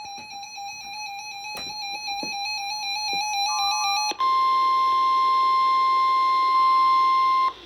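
An electronic alert beeping in a fast pulsing pattern and growing louder. About four seconds in it gives way to the steady NOAA Weather Radio 1050 Hz warning alarm tone, which sounds loudly for about three seconds and cuts off suddenly, signalling that a warning broadcast follows.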